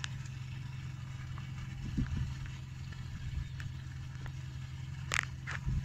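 Volvo Penta diesel engine idling steadily, with a low knock about two seconds in and a couple of brief sharp clinks near the end.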